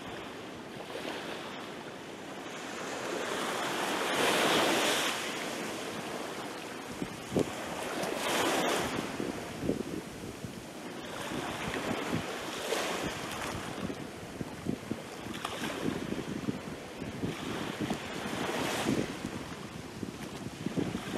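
Small waves breaking and washing up a pebbly sand beach, surging about every four seconds, with the fizz of foam running over the shore between surges.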